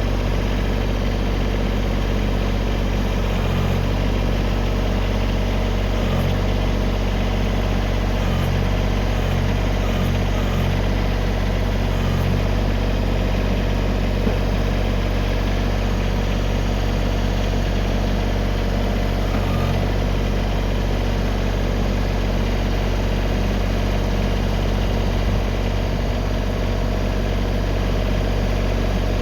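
Tractor engine running steadily at idle, its low hum swelling briefly several times in the first half.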